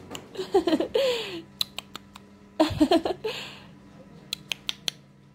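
Spoon-feeding a toddler mashed banana: two short wordless vocal sounds with sliding pitch, one near the start and one mid-way, and many small sharp clicks and smacks of spoon and mouth, over a faint steady hum.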